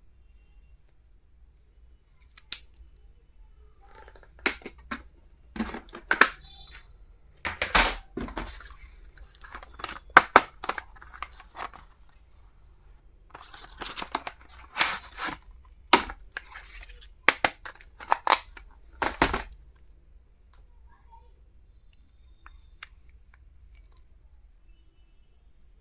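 Stationery packaging being handled and opened: irregular sharp clicks mixed with short crinkling, tearing rustles, busiest from about 4 to 19 seconds in.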